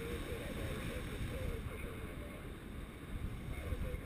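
Wind rushing over the microphone of a paraglider's harness-mounted camera in flight: a steady, gusty buffeting that is strongest in the low end.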